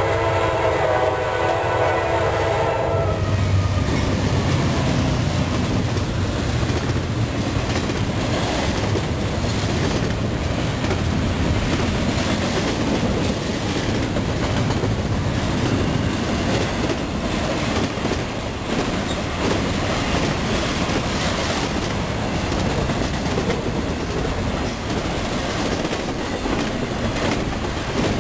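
A Norfolk Southern freight train's air horn sounds a chord that ends about three seconds in. Then the locomotives and cars pass close by, with a steady rumble and the clatter of wheels on the rails.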